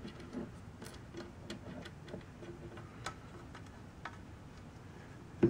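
Faint, irregular small clicks of a potentiometer's metal nut and washer being threaded by hand onto its bushing and seated against a synthesizer case panel.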